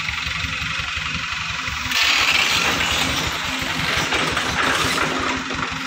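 Diesel engine of a loaded light dump truck running, then from about two seconds in growing louder and rougher as the truck labours up a steep loose dirt slope.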